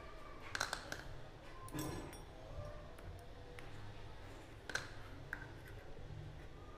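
Faint metallic clicks and clinks of loose steel bearing balls being taken out of a bicycle's cup-and-cone rear hub, a handful of sharp ticks spread apart.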